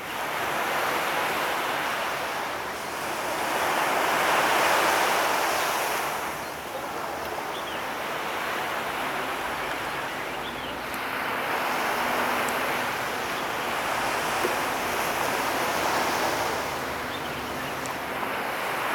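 Waves washing in, a rushing wash that swells and fades in surges every few seconds.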